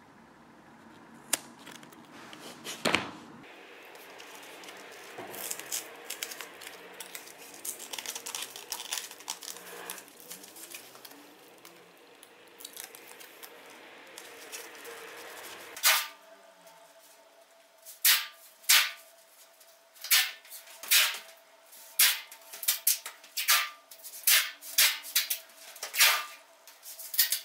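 Scissors snipping metal foil tape, then the foil tape rustling and crinkling as it is pressed down over a heating-mat join. Past the middle comes a quick run of sharp rasps, about one a second, as tape is pulled off and laid on the heating mats.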